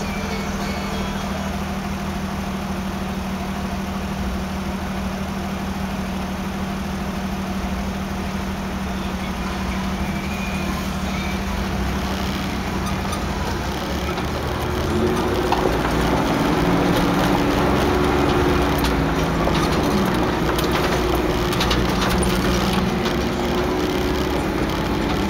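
Engine and cabin noise of a 1988 Toyota 4Runner, heard from inside as it crawls along a rough dirt trail; a steady low hum that grows louder with shifting tones about halfway through.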